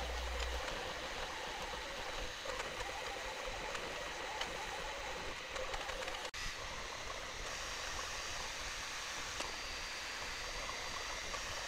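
Bambu Lab 3D printer running while it prints, giving a steady fan hiss with a faint high motor whine; the sound cuts out for an instant about six seconds in.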